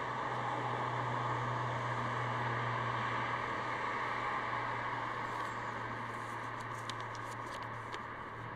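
Steady outdoor background noise, a low hum under an even hiss. Near the end come a few faint crisp crackles as a folded paper note is opened.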